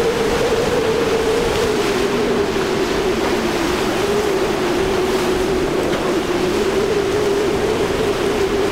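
Outboard engines of a center-console fishing boat running at high speed, a steady engine drone that eases slightly lower in pitch in the first second and then holds. Under it, the rush of wind and of the hull's spray through choppy water.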